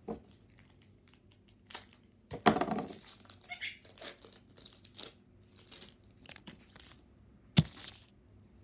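Foil wrapper of a Pokémon card booster pack crinkling and being torn open in short crackles. There is a longer, louder rip about two and a half seconds in and a single sharp crack near the end.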